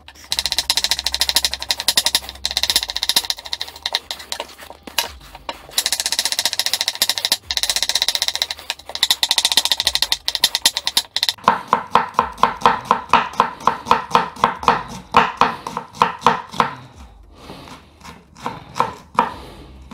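Kitchen knife slicing an onion thinly on a wooden chopping board: a fast run of short blade strokes against the board. About halfway in they become an even rhythm of louder knocks, about three a second, which thin out and grow quieter near the end.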